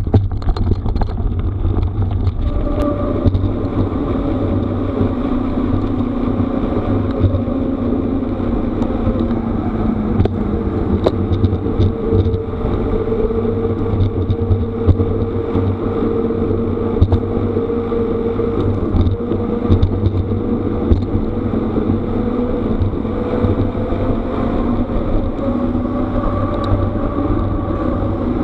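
Continuous rumble and rattle of travel over a rough gravel forest road, with a steady hum that slowly drifts in pitch and scattered small knocks.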